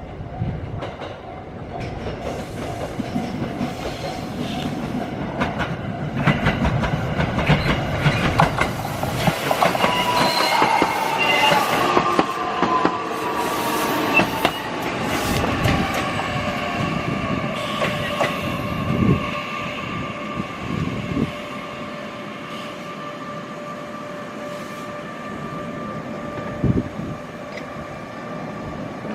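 Electric local train pulling into a station: wheels clicking over rail joints as it nears, then a falling whine and squeal as it brakes, settling into a steady hum with held tones once it stands at the platform.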